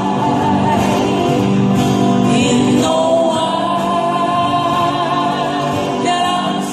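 Live acoustic-guitar band music with vocals singing long held notes over the guitars.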